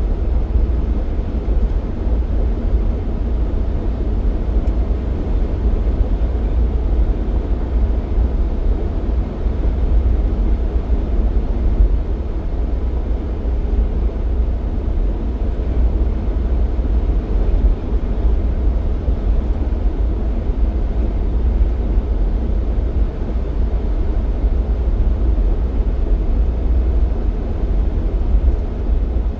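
Jeep Cherokee XJ driving: a steady low rumble of engine and road noise with no change in pace.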